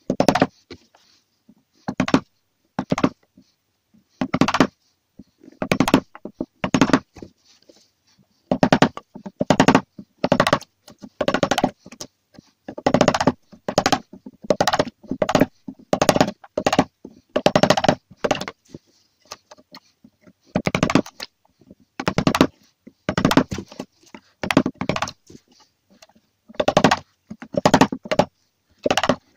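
Wood chisel being struck again and again, chopping a notch out of the corner of a timber frame member. The strikes come in irregular runs of several, with short pauses between.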